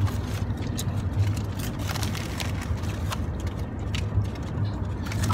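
Steady low road and engine rumble inside a moving car's cabin, with scattered light clicks and rattles.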